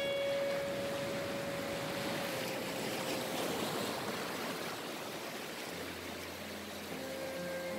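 Shallow ocean surf washing over a flat sandy beach: a steady rushing hiss. A single held music note sounds underneath at first, and low held music notes come back near the end.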